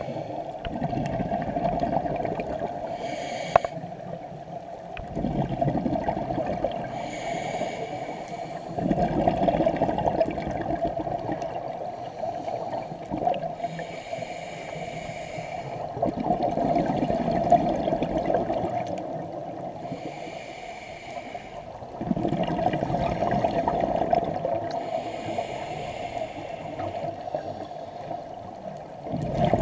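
Scuba regulator breathing heard underwater: a hissing inhale through the regulator, then a longer burst of exhaled bubbles, repeating about five times at a slow, even pace.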